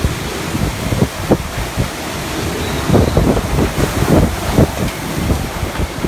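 Violent typhoon wind gusting hard and buffeting the microphone in irregular rumbling surges.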